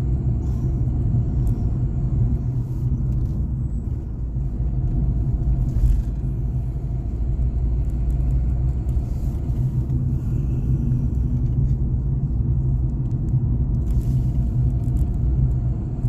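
A car driving on a rural road, heard inside the cabin: steady low engine and road rumble, with one bump about six seconds in.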